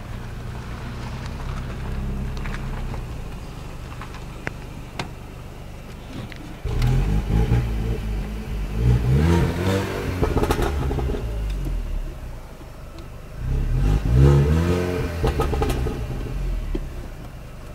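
Mini Cooper S JCW's supercharged four-cylinder engine through a decatted, resonator-delete exhaust, heard from inside the cabin. It runs steadily at low speed, then accelerates hard with rising pitch about seven seconds in and again, loudest, about fourteen seconds in, each time easing back to a steady drone.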